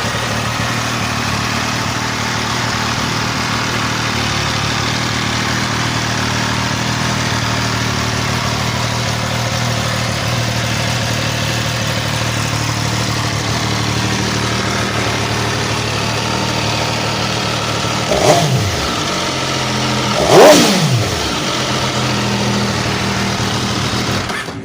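MV Agusta F3 800's 798 cc inline three-cylinder engine idling steadily, then blipped twice, about 18 and 20 seconds in. Each blip rises in pitch and falls back to idle, and the second is the louder.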